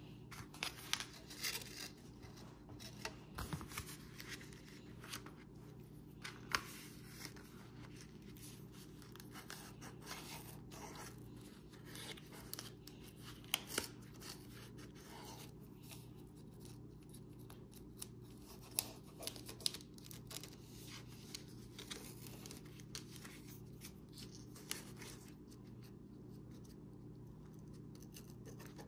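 Sheet of clear contact paper rustling and crinkling as it is pressed over a coaster tray and traced around with a ballpoint pen, with scattered light clicks and taps. A steady low hum lies beneath.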